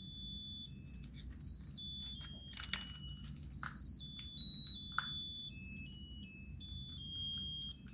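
Musical flower birthday candle's electronic chip playing a tinny, beeping melody in thin, high pure tones, with a few clicks and knocks as it is handled. It keeps playing because there is no obvious way to switch it off.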